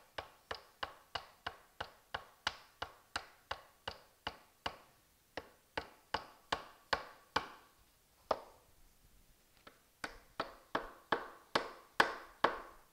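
Rubber mallet tapping a 3/8-inch carriage bolt through a cornhole board's wooden leg and frame to seat it, a steady run of sharp taps about three a second. After a pause of about two seconds past the middle, a second run of taps comes, louder near the end.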